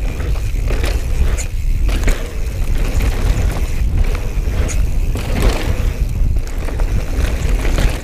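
2017 Giant Trance 2 mountain bike ridden on a trail: tyre noise over dirt with repeated knocks and rattles over bumps, and a heavy low rumble of wind on the camera microphone.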